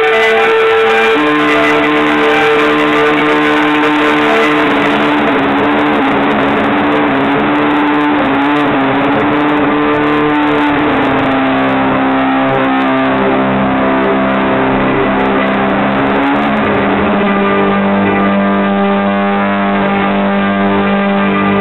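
Live electric violin music, heard through a phone's microphone: long held notes with a rich tone that step to a new pitch a few times.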